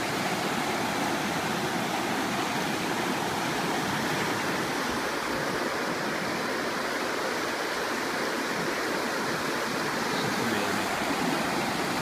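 Creek water rushing and splashing over boulders in a rocky rapid, loud and steady, close to the microphone.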